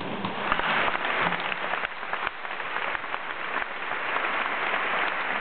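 Concert audience applauding: a dense, steady patter of many hands clapping.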